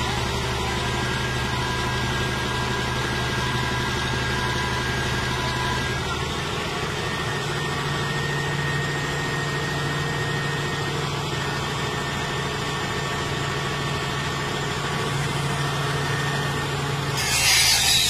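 Caterpillar D8N bulldozer's diesel engine running steadily at low speed, its pitch stepping up slightly about six seconds in. Near the end a louder, harsh noise joins it.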